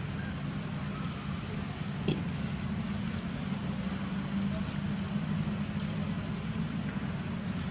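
Insects calling in high, rapidly pulsing buzzes, each about a second long, three times, over a low steady hum. A single sharp click comes about two seconds in.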